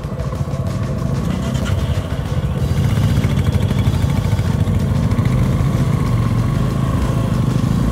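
Motorcycle running under way on a ride, a steady low engine rumble that grows slightly louder about three seconds in.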